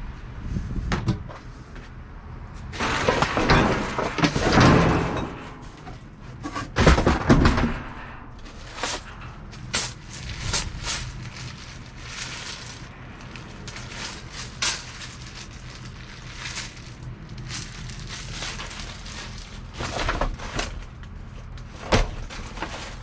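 Rummaging through discarded thrift-store items in a dumpster: bursts of rustling and clattering as things are shifted, then scattered knocks and clinks, over a low steady hum.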